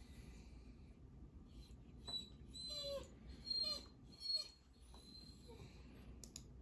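Vizsla whining while begging for food: a handful of short, high, squeaky whines that bend in pitch, bunched between about two and four and a half seconds in.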